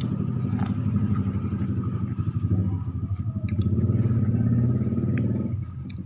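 A motor vehicle's engine running steadily nearby, dropping away about five and a half seconds in, with a few light clicks over it.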